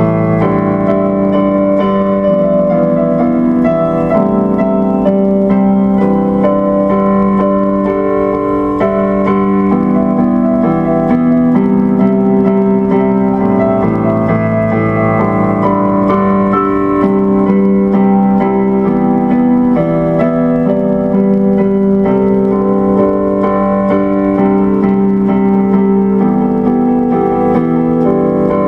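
Instrumental keyboard music, electric piano, with held chords that change every second or two at an even loudness.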